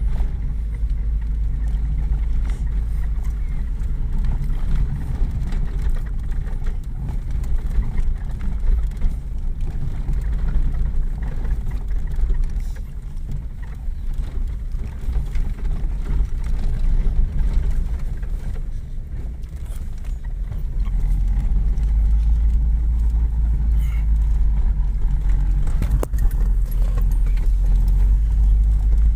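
Old vehicle driving on a rough dirt road, heard from inside the cab: a steady, heavy low rumble of engine and tyres with scattered knocks and rattles, growing louder about two-thirds of the way in.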